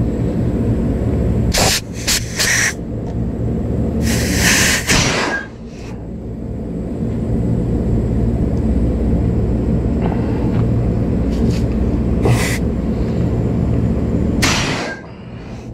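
Refrigerant (Freon) rushing out of the open copper outlet pipe of an air-conditioner condenser coil while the coil is being flushed. A steady low rush is broken by several sharp hissing spurts, and the flow drops off briefly about five seconds in and again near the end.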